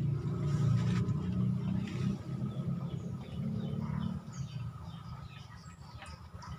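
A low engine rumble, loudest in the first few seconds and then fading away, with small birds chirping over it near the end.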